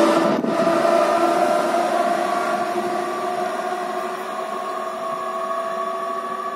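A train running past and away, with a steady whine of several held tones over a rumble, slowly fading.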